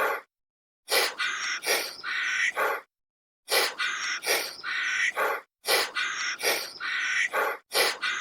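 An animal's harsh, raspy calls, three in quick succession, the same short clip repeated about every two and a half seconds with dead silence between repeats.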